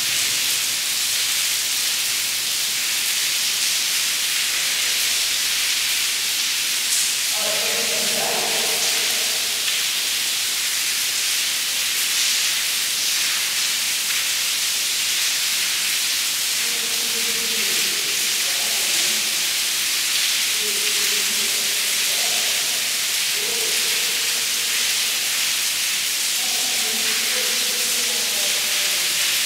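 Steady, high hiss of falling water splashing onto a stone-edged pool.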